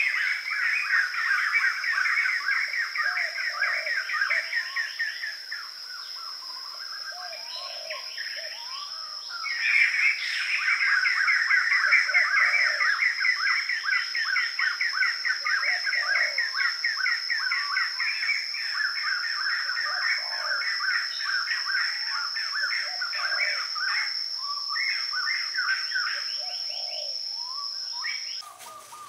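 Birds chirping rapidly and continuously, with scattered lower calls, over a steady high-pitched whine; it all cuts off abruptly near the end.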